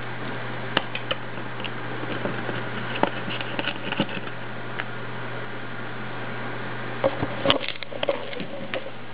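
Scattered small clicks and taps of a precision screwdriver working screws on a circuit board inside a plastic housing, with a denser cluster of knocks and rattles from handling about seven seconds in. A steady low hum runs underneath.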